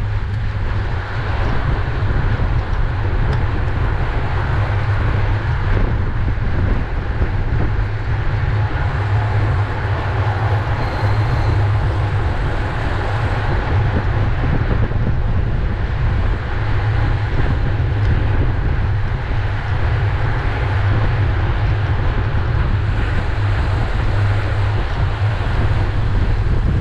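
Wind buffeting the microphone of a bicycle-mounted onboard camera at riding speed: a steady low rumble with rushing air over it.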